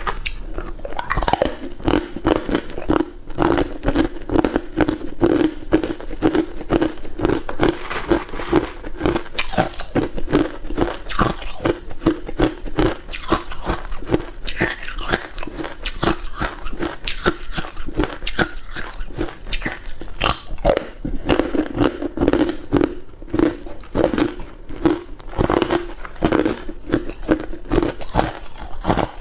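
Ice being bitten and crunched in the mouth close to the microphone: a quick, unbroken run of sharp crunches, several a second.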